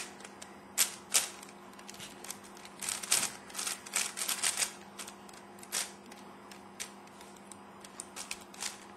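Plastic layers of a Crazy 3x3 Earth twisty puzzle clicking and clacking as they are turned in quick runs of moves, Sune algorithms near the end of the solve. The clicks come in irregular clusters, busiest about a second in and again around three to four and a half seconds.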